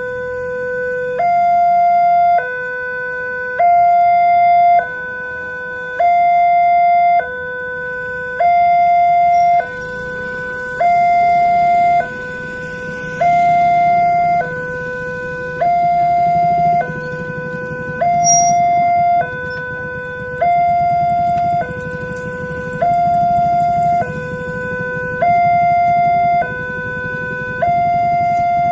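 Railway level-crossing electronic warning siren sounding, alternating steadily between a low and a higher tone, each held a little over a second, with the higher tone louder.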